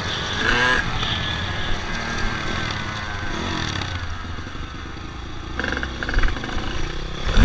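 Dirt bike engines running while riding along a grassy track. A few sharp loud knocks come in the last two seconds.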